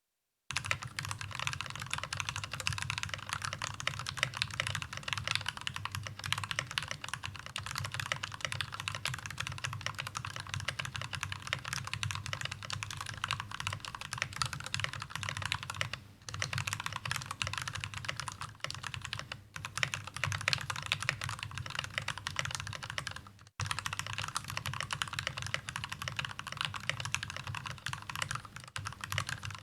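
Fast, continuous typing on an NK65 v2 aluminium-cased mechanical keyboard with Gateron Ink Black linear switches lubed with Krytox 205g0 and PBT keycaps, a dense run of key clacks broken by three short pauses in the second half.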